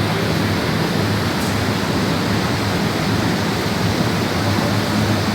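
Steady, loud rushing noise with a low, wavering hum, typical of ventilation or machinery running in a factory hall.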